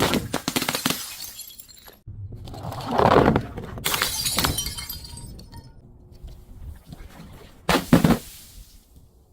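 Glass bottles being crushed, cracking and crunching in three bouts; the last is a short, sharp break near the end.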